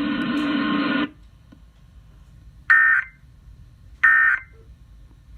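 Emergency Alert System end-of-message data bursts: short, identical screeching bursts of digital tones, two of them about 1.3 seconds apart, with a third starting at the very end. Before them the broadcast audio cuts off about a second in.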